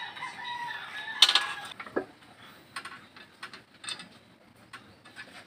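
A rooster crowing, one call of just under two seconds. A sharp metallic clank about a second in is the loudest sound. Scattered light clicks follow.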